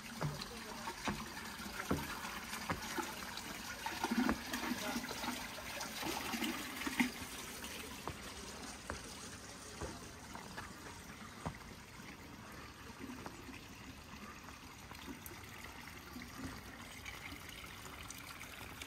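Water trickling steadily from a small stone garden fountain into its basin.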